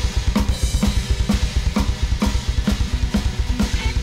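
Drum kit playing a fast, steady groove: a sharp snare crack about twice a second over quick, busy bass-drum beats, with a held tone underneath.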